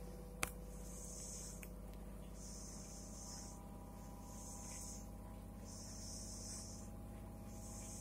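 LG FV309N front-loading washing machine running mid-wash: a steady hum, with a hiss that comes and goes about every one and a half seconds. A single sharp click about half a second in.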